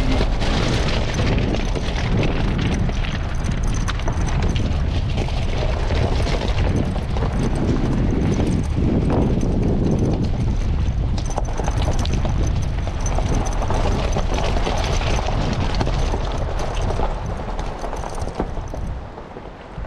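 Suzuki four-wheel drive rolling over a loose stone and gravel track: tyres crunching on the stones with irregular knocks over a steady low rumble, easing off near the end.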